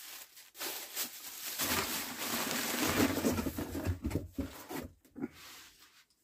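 Rustling and crackling of a new polyester zip jacket being pulled from its packaging and shaken open. The rustle swells about half a second in, is loudest in the middle, and thins out into a few sharper crackles near the end.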